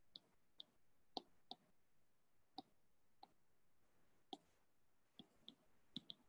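Faint, irregularly spaced clicks of a stylus tip tapping on an iPad's glass screen during handwriting, about eleven in all.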